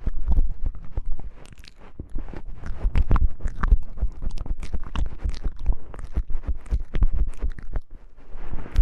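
Close-miked ASMR tapping and handling of wooden objects: a dense, irregular stream of crisp clicks and crackles with heavy low thumps on the microphone.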